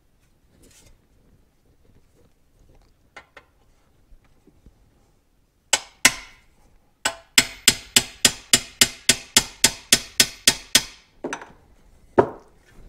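Small hammer peening the back of an aircraft rivet to set a spring clip on a 1968 Ford Torino shift plate, against a steel block: two taps, then a fast run of about eighteen sharp metallic strikes, about five a second. Two duller knocks near the end.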